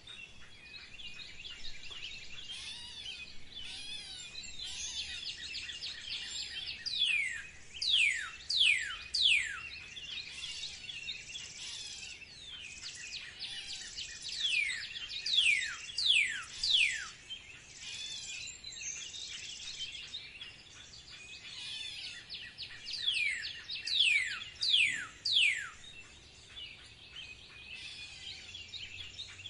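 Songbirds chirping in a busy chorus, with one bird giving loud series of four or five sharply falling whistled notes three times, about a second in each time the series starts over.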